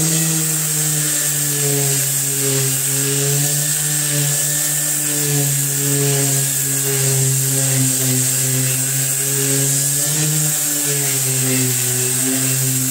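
Electric random-orbit sander, the kind that both rotates and vibrates, running steadily: an even motor hum with a faint high whine, its pitch wavering slightly.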